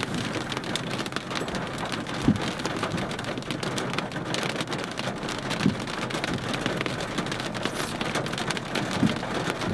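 Heavy rain and hail pelting down: a dense patter of sharp hits, with three heavier thuds about two, five and a half, and nine seconds in.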